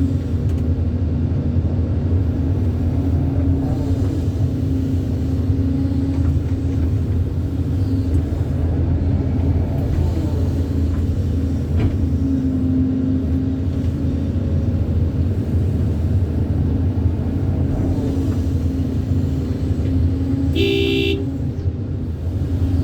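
Excavator's diesel engine running steadily with a low drone. A short horn toot sounds once near the end.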